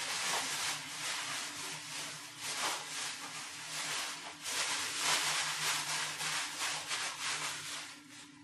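Water running from a bathroom tap into the sink, with an uneven rubbing, scrubbing texture as hands work under it; it starts and stops sharply.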